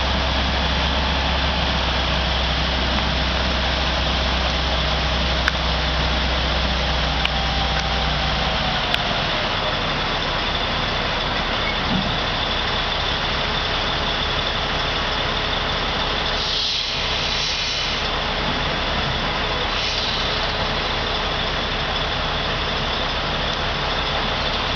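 Heavy diesel engine running steadily. A deep low hum drops away about nine seconds in, just after a faint whine falls in pitch, and the engine keeps running.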